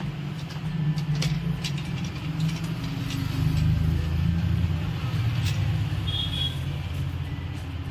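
Low engine rumble of a motor vehicle, growing louder about three seconds in and then slowly fading, with a few light clicks.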